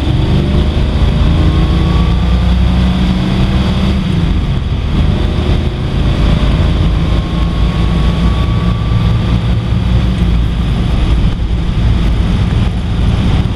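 1955 Ford's 292 Y-block V8 and drivetrain running steadily under way, heard from inside the cabin with road and wind noise, its exhaust leak repaired. A faint rising whine comes and goes twice, and the low engine note changes about four seconds in.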